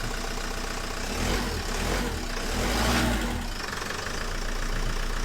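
Renault Mégane 1.9 dCi four-cylinder turbodiesel running after a crank-no-start, now going again once the snapped wire to its fuel flow solenoid valve has been repaired. It idles steadily, with a brief rise and fall in engine speed near the middle.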